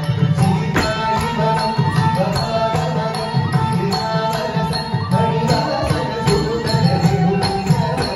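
Carnatic music for Bharatanatyam dance: a held melody over steady drumming, with regular sharp percussion strokes.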